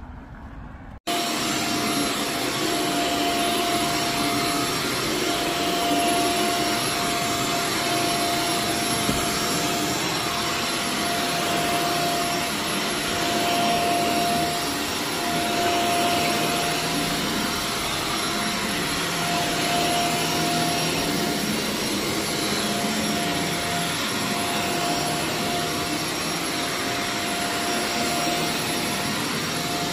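Carpet-cleaning vacuum or extraction machine switched on about a second in, then running steadily: a loud, even rushing of suction with a steady whine on top.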